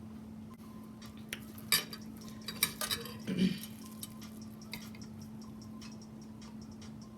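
Eating utensils clicking and clinking against a plate or food container: a few scattered sharp clicks, the loudest cluster between about one and a half and three and a half seconds in.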